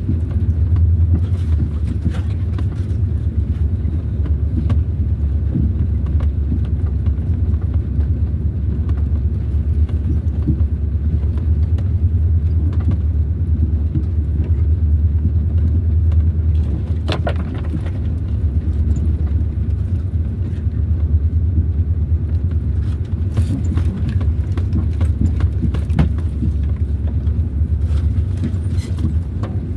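A steady low rumble, with one faint sharp click just past halfway.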